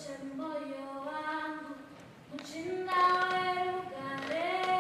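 Mixed school choir of boys and girls singing long held chords in several parts. There is a short break about two seconds in, then a louder phrase swells up and holds.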